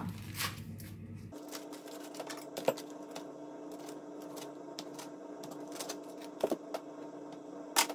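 A foil-paper wrapper crinkling as a wedge of brie is unwrapped and cut with a knife on a wooden chopping board: scattered small taps and crinkles with a few sharp clicks. A steady hum comes in underneath about a second in.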